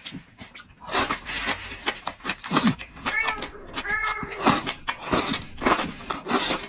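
Close-miked eating: repeated chewing and slurping noises. A little past the middle, a pet animal gives two short whining calls.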